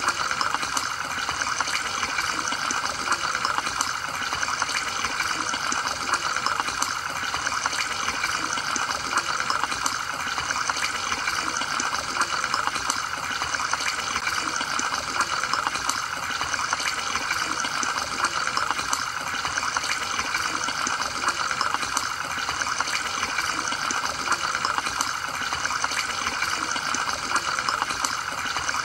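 Air bubbling steadily through an aquarium sponge filter: an even, unbroken stream of small bubble pops and trickling water.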